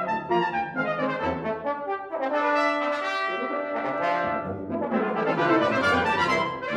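Brass quintet of trumpets, French horn, trombone and tuba playing a fast classical piece together: quick short notes, a stretch of longer held notes in the middle, then quick notes again near the end.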